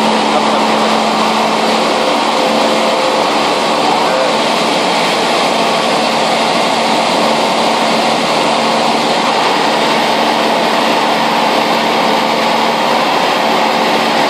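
Steady drone of a high-wing light aircraft's piston engine and propeller in flight, heard from inside the cabin: an even engine hum over a constant hiss.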